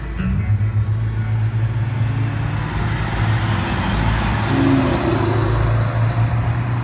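A Ford Mustang's engine and exhaust as the car drives past and away, a steady low running note with road noise swelling loudest about four seconds in.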